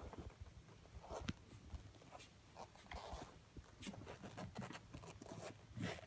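Newborn Siberian husky puppies suckling from their mother: faint, irregular little sucking clicks and snuffles.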